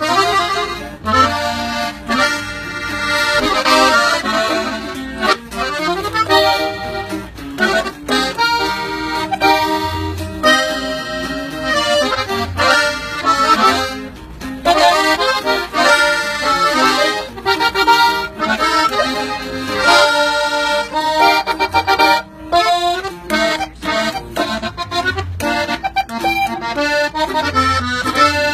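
Gabbanelli button accordion played solo, a quick-moving norteño melody with many short notes.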